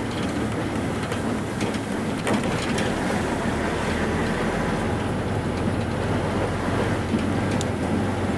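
Steady running noise of a vehicle heard from inside its cabin while driving along a dirt track: a constant low engine hum with a few brief knocks.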